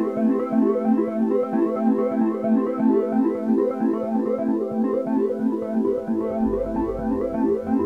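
Electronic background music: a synthesizer playing quick, repeating notes, with a deep bass coming in near the end.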